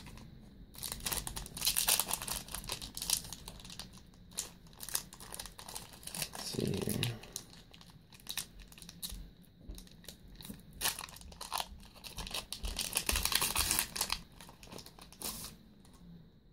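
Foil booster-pack wrapper of a Yu-Gi-Oh trading-card pack being torn open and crinkled by hand, a run of crackling rustles that is loudest near the start and again near the end.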